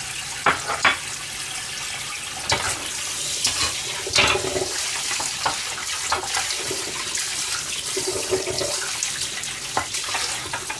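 Kitchen tap running into a sink as a frying pan is rinsed, with scattered knocks and clatters of the pan against the sink.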